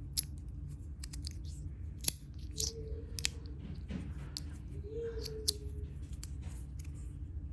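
Small sharp clicks and ticks from hands handling a stainless steel magnetic fidget slider, irregular and of uneven loudness, a few much louder than the rest.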